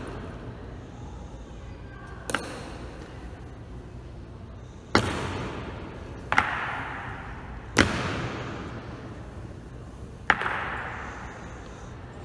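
Five heavy, sharp stamps of a ceremonial guard's boots striking the stone floor at a slow, uneven march pace, each ringing out with a long echo in the large hall.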